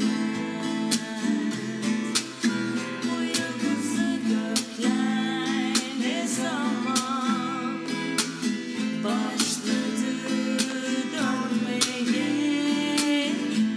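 Acoustic guitar strummed in a steady rhythm, accompanying a woman singing a wavering melody.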